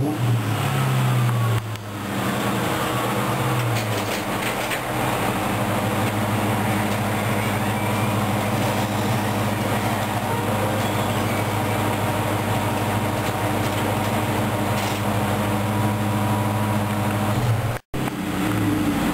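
Ford Mustang engine running: two swells in pitch in the first few seconds, then a steady idle. It cuts out for an instant near the end.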